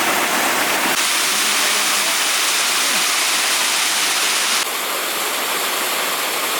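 Steady rushing of fast-flowing water, like a mountain stream or small waterfall, with its level shifting abruptly about a second in and again past the middle.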